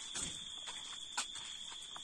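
A steady high-pitched tone runs throughout, with a fainter one above it. Over it come a few short knocks and rustles, the sharpest a little after a second in.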